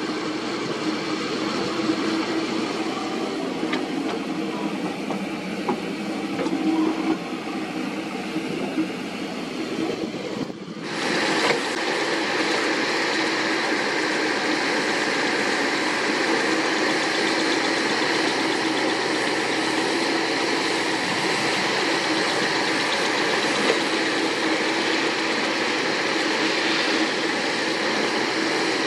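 Komatsu PC78US mini excavator's diesel engine running steadily while the machine digs and moves soil. About ten seconds in the sound changes suddenly, becoming brighter and a little louder, then holds steady.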